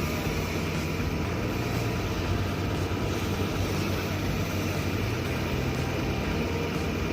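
A motor engine running steadily with a low drone, without a clear change in speed.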